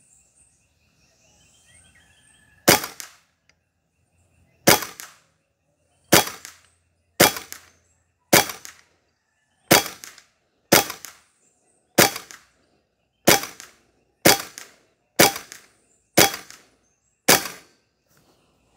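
Karma SLS .22 PCP air rifle firing in semi-automatic mode: about a dozen sharp shots in quick succession, roughly one a second, starting about three seconds in.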